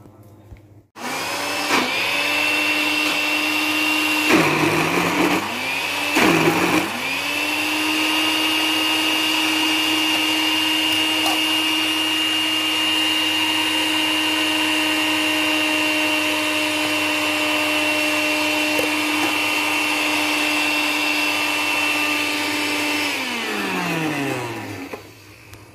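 Philips countertop blender motor running on a thick load of cooked mung beans and coconut milk. It starts about a second in, slows and picks up again twice in the first few seconds, runs at a steady pitch, and winds down with a falling pitch near the end.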